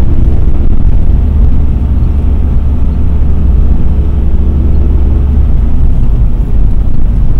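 Mercedes-Benz W126 driving along, heard inside the cabin: a steady low rumble of engine and road noise, with a faint hum in it that fades out about five and a half seconds in.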